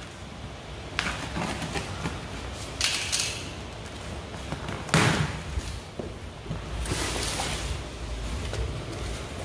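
Corrugated cardboard shipping box being opened by hand: the flaps scrape and rustle as they are pulled apart and folded back. There are several knocks, the loudest a thud about five seconds in.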